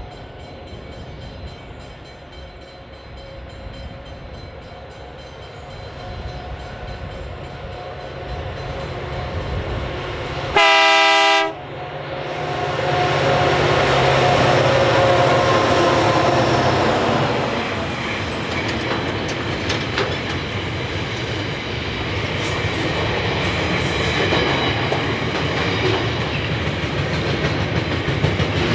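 Diesel freight locomotives approach, with their engine noise building. About ten seconds in there is one loud horn blast lasting about a second. The locomotives then pass close by at their loudest, followed by the steady rolling noise of the intermodal container wagons, with scattered clicks from the wheels.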